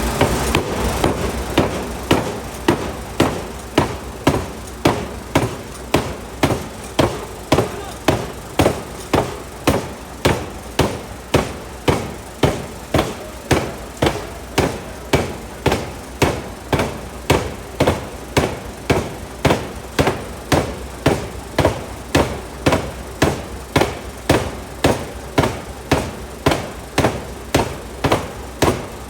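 750 kg pneumatic forging hammer striking a hot steel die block in a steady, even rhythm, a little under two blows a second, each blow with a short metallic ring.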